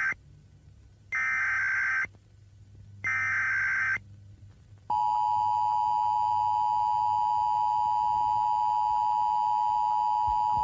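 Emergency Alert System tones: the end of one short burst of warbling data tones and two more full bursts, each about a second long, the SAME header that opens an alert. About five seconds in, the steady two-tone EAS attention signal begins and holds.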